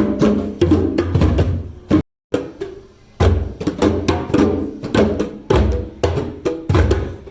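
Group of hand drums played together in a drum circle, with deep bass strokes about twice a second and lighter sharp slaps between them. The playing breaks off for a moment about two seconds in.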